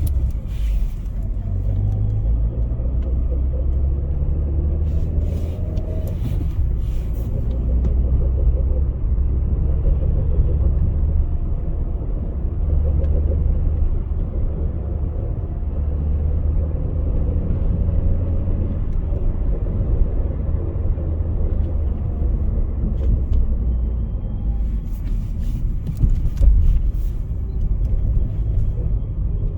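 Citroën C5 1.8 petrol engine running with a steady low rumble, the noise its owner suspects is abnormal. A few brief clicks sound twice, a few seconds in and near the end.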